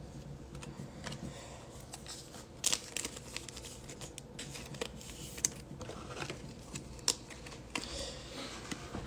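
Baseball cards being handled: soft rustling and crinkling with a few sharp taps and clicks, the loudest about two and a half seconds in.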